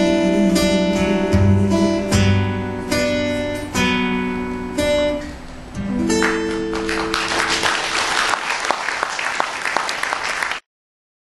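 Closing bars of a bossa nova song on guitar, plucked chords with no voice. About six seconds in, audience applause breaks out over a final held chord, and the sound cuts off suddenly near the end.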